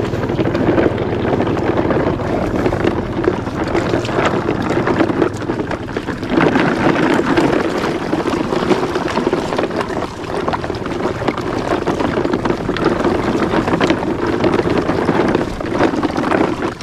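Large plastic toy dump truck's wheels rolling steadily over wet pavement as it is pulled along on a string, with wind buffeting the microphone.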